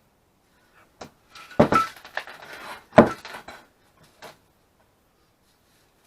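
A short run of workshop knocks and clinks, as of hard parts being handled and set down. Two louder knocks come about a second and a half in and at three seconds, with lighter clinks around them.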